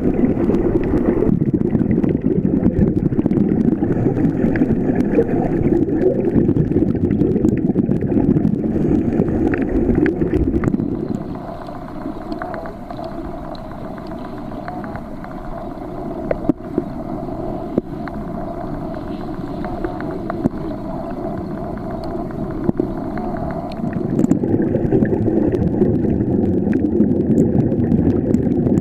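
Muffled underwater rumble and bubbling from divers breathing through regulators, heard through a camera's waterproof housing. From about 11 seconds in until about 24 seconds it drops to a quieter, steadier hum, then the loud rumble returns.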